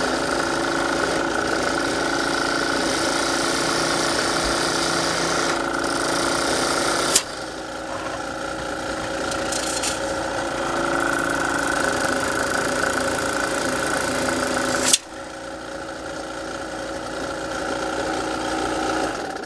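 Small Jensen model steam engines running steadily on compressed air fed through a hose for a bench test, with a constant hiss and mechanical running noise. About seven seconds in and again about fifteen seconds in, a sharp click, and the sound drops abruptly in level.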